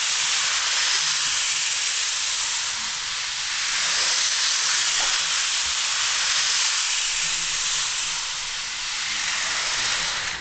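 Model train running on its track close by: a steady hissing rush that swells slightly as it passes and cuts off suddenly at the very end.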